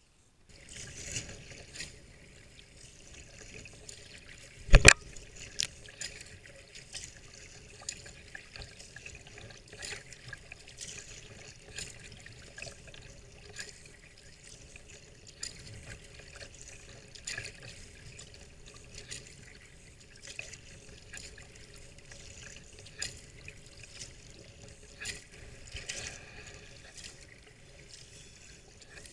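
Choppy water lapping and splashing against a sea kayak's hull as it is paddled, with irregular small splashes and ticks throughout. A sharp double knock comes about five seconds in.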